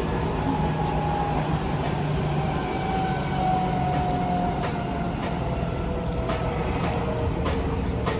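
Seibu 20000 series train's Hitachi IGBT-VVVF inverter whining, its tones sliding slowly down in pitch as the train slows. Under it the wheels rumble on the rails, with a few sharp clicks.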